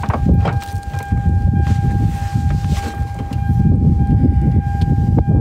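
Wind buffeting the microphone, a low, gusty rumble, with a steady thin whistle-like tone held throughout.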